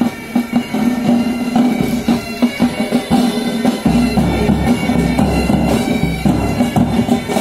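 Military pipe band playing on the march: bagpipes sounding their steady drone under the chanter melody, with side and bass drums keeping a regular beat.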